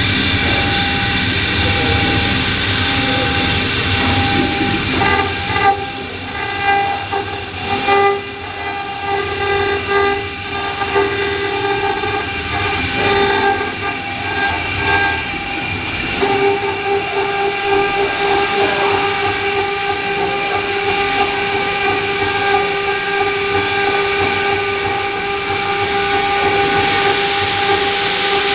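Heavy-duty granite CNC engraving router running, its 5.5 kW water-cooled spindle and stepper motors giving a steady whine of several tones. The whine wavers and dips in level for a stretch in the middle, then settles steady again.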